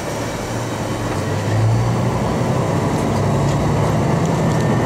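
Haimo 295 diesel railcar engine throttling up as the train pulls away from a station. It gets louder about a second and a half in, and its note steps up in pitch about a second later.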